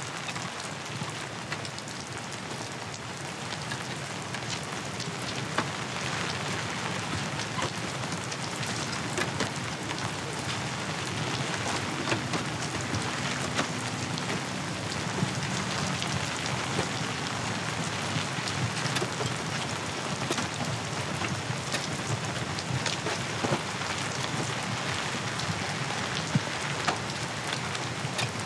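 Steady heavy rain falling, with scattered small clicks through it.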